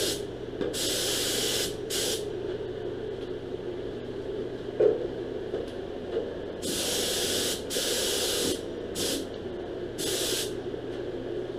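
Air spray gun spraying in six short hissing bursts, each lasting a second or less, with pauses between them. A steady low hum runs underneath.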